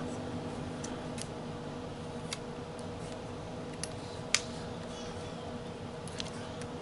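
A handful of light, scattered clicks and taps of hand tools and metal parts as a throttle body is taken apart, the sharpest a little past four seconds in, over a steady hum.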